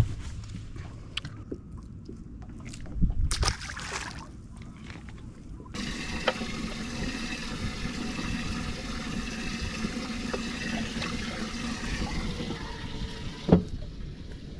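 Water splashing and trickling, with scattered knocks at first; about six seconds in a steady hissing rush with a low hum starts suddenly, and it stops just after a sharp knock near the end.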